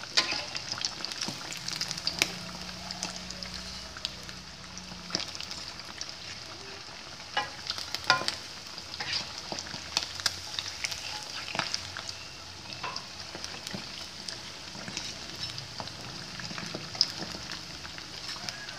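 Sticky-rice rolls deep-frying in hot oil in an aluminium wok: a steady sizzle, with scattered clicks and scrapes as a spatula turns them in the pan.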